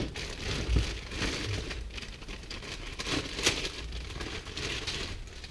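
Packaging being handled during an unboxing: intermittent crinkling and rustling with a few light clicks, the sharpest about three and a half seconds in.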